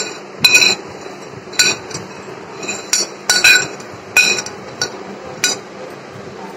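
Crisp deep-fried fusilli pasta pieces dropping into a glass bowl, a dozen or so separate hard clinks against the glass at uneven intervals. The hard, dry clinks show how crisp the pasta has fried.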